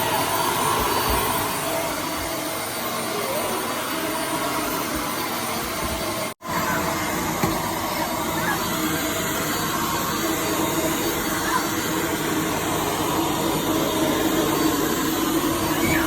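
Dyson Light Ball Multifloor upright vacuum cleaner running steadily on the floor. The sound cuts out for an instant about six seconds in, then carries on.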